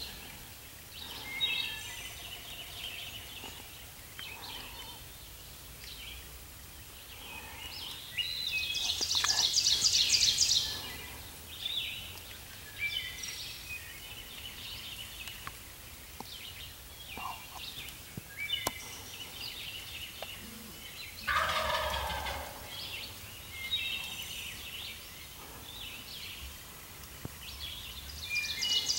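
Wild turkey gobbler gobbling, a loud rapid rattling gobble about nine seconds in and another starting near the end, with short high bird chirps scattered between.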